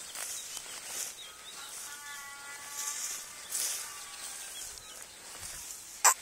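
Footsteps swishing through tall meadow grass in a rough walking rhythm, over a faint steady chirring of insects. A single sharp click just before the end is the loudest sound.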